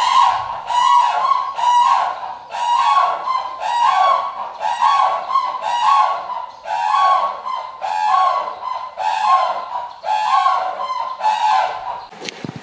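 A large bird honking over and over, goose-like calls coming a little more than once a second, sometimes in twos and threes, until they stop near the end.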